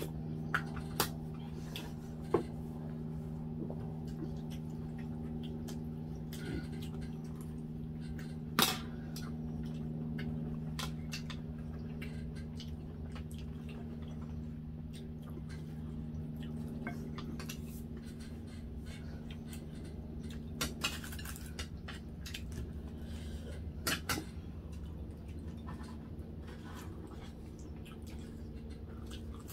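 Spoons and cutlery clinking against plates during eating, a scattering of short sharp clicks with longer gaps between. A steady low hum runs underneath.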